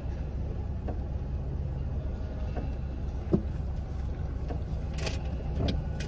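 Car engine idling steadily, heard from inside the cabin, with one sharp click about three seconds in and a few brief rustles near the end.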